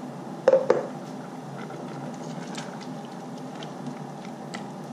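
Two sharp knocks with a short metallic ring about half a second in, as a stainless steel cooking pot on the hob is handled, then a steady low background with faint scattered ticks as a spatula stirs the curry in the pot.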